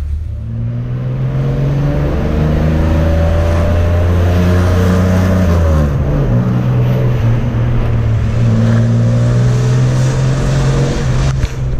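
Chevrolet Opala's six-cylinder engine, heard from inside the car, pulling through a gear with its pitch climbing. Its pitch drops at a gear change about halfway through, then it pulls again. It is loud through an exhaust modified to make it louder.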